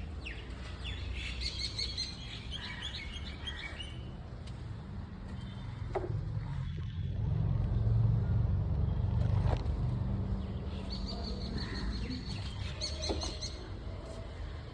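Birds chirping in short bursts near the start and again near the end, over a low rumble that grows louder in the middle.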